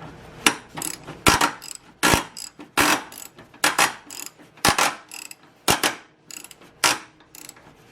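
Socket ratchet clicking in short rasps, stroke after stroke, about one to two a second, as a 17 mm engine mount bolt is worked loose.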